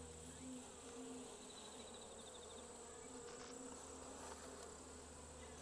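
Japanese honeybees buzzing faintly at an opened hive, a soft hum that wavers slightly in pitch.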